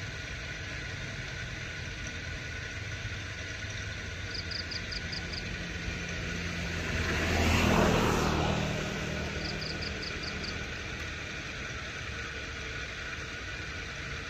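An engine runs steadily in the background. A little past halfway, a louder rushing sound swells and then fades. A faint run of five quick high ticks repeats about every five seconds.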